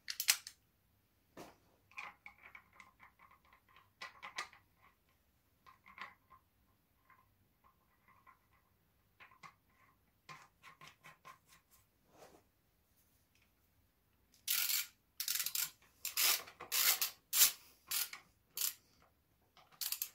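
Small clicks and scrapes of plastic inspection caps being threaded back into a motorcycle's aluminium crankcase cover by hand, with faint squeaks. A run of louder sharp clattering follows near the end, as a screwdriver is handled and set to the caps.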